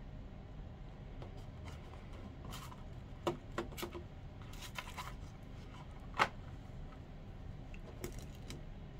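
A cardboard gift box being handled and opened by hand: soft slides, rustles and taps, with a cluster of small knocks and one sharp knock a little past halfway. Near the end, faint light clicks as a wooden-ribbed folding fan is spread open. A low steady hum runs underneath.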